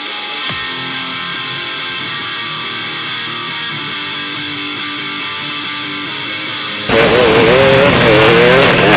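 Background music, a guitar-led track that plays evenly and then turns suddenly much louder about seven seconds in, with a wavering, buzzing tone.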